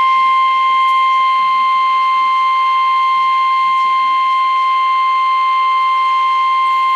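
Emergency alert attention tone: one loud, unwavering tone at about 1 kHz, the NOAA Weather Radio 1050 Hz warning alarm tone that announces a new warning.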